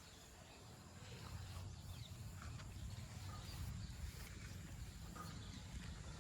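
Low, steady rumble of a distant diesel engine, with a few faint bird chirps.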